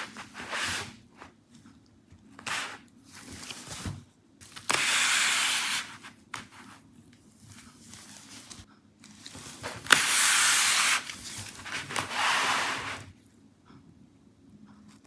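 Handling noise: rough rubbing and scraping as gloved hands move the opened laptop, in irregular bursts. The loudest come about five, ten and twelve seconds in, each lasting a second or so, with quieter rustling between.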